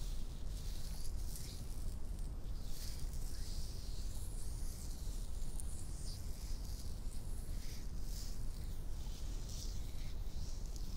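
ASMR hand sounds close to the microphone: skin rubbing and fingernails scratching, in soft, irregular hissing swishes.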